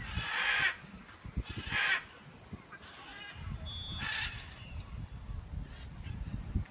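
Geese honking: three harsh calls of about half a second each, one near the start, one just before two seconds and one around four seconds in, with a few thin bird chirps. Wind rumbles on the microphone.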